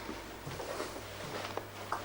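Quiet room tone: a steady low hum with a few faint small knocks and rustles.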